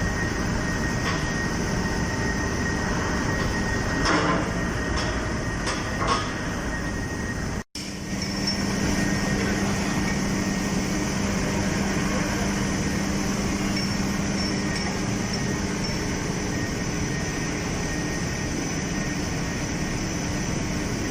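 Steady, loud industrial running noise from an aluminium tilting rotary furnace plant, with a few metallic clanks in the first half. After a brief cut about eight seconds in, the noise carries on with a steady low hum.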